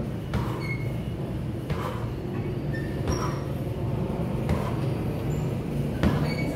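Kicks landing on a hanging heavy punching bag, about five sharp thuds roughly a second and a half apart, the last the loudest, over a steady low rumble.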